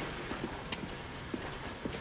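Hemp rope strands being twisted together on a rope walk: a steady low mechanical noise with a few light clicks.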